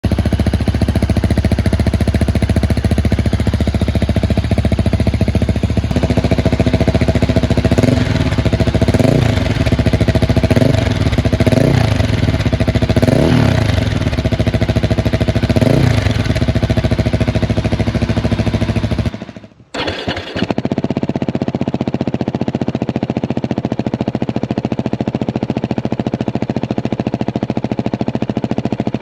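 Husqvarna 701 Supermoto's single-cylinder engine running through a Remus exhaust: idling, with the throttle blipped about five times in quick succession in the middle. About two-thirds in, the sound cuts out for a moment, then the engine goes on idling steadily.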